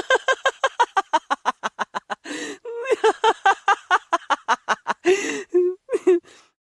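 A person laughing hard in a high-pitched voice: a rapid run of "ha" pulses, about six a second, broken twice by a wheezing intake of breath, then dying away near the end.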